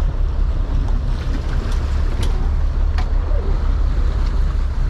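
Steady low rumble and wash of a sport-fishing boat on open water, with wind on the microphone and two sharp clicks about two and three seconds in.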